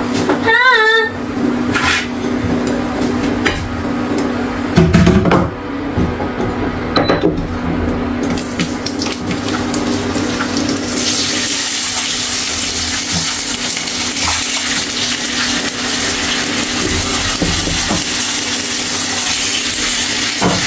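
Kitchen work sounds over a steady low hum, with a few clatters about five seconds in. About eleven seconds in, a steady hiss of water running from a tap starts. A short warbling voice sounds near the start.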